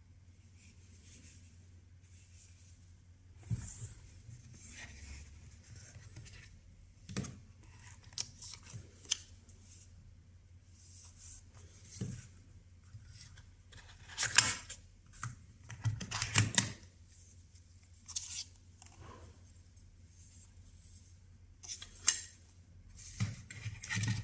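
Hands handling packaging and small parts: an irregular run of rustles, scrapes and light clicks and knocks, the busiest stretch a little past halfway, over a faint steady low hum.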